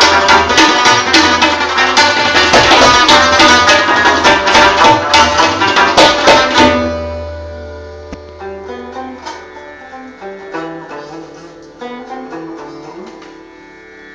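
Afghan rubab played with tabla, fast plucked strokes over a driving drum rhythm. About seven seconds in, the tabla stops abruptly and the rubab carries on alone, softer, with slower plucked notes.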